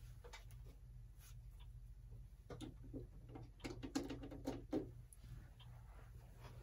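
Low, steady electric hum from a clock-motor test coil energised with a re-oiled Telechron rotor in it. A cluster of small clicks and light rattles comes from about two and a half to five seconds in.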